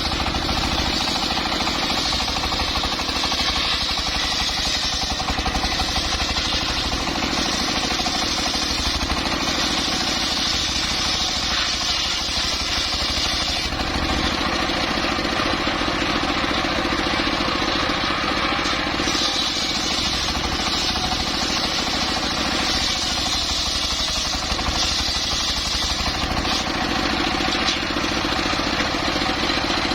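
Engine-driven circular saw rig running steadily with a fast, heavy engine pulse. A higher sawing sound rises over it in several stretches as the blade cuts through timber.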